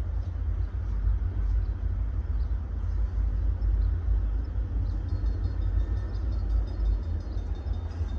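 A steady low rumble that swells and dips a little in loudness.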